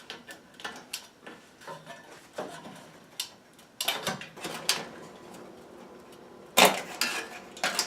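Hands working on a stove's ignitor switches and wiring: scattered light clicks, scrapes and knocks of metal and plastic parts, with a louder clatter about six and a half seconds in and another near the end.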